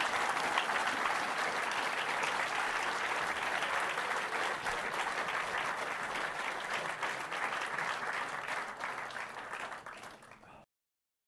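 A large audience applauding steadily. The clapping thins slightly near the end and then cuts off abruptly.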